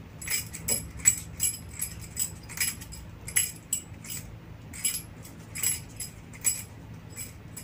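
Foam-padded nunchaku spun in circles with one hand, its connector giving a run of light clicks, about three to four a second, one with each turn.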